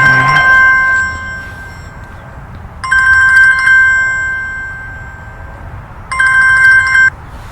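Telephone ringing: three rings about three seconds apart, each a bright steady multi-tone ring that fades away, the last one cut off abruptly as the call is answered.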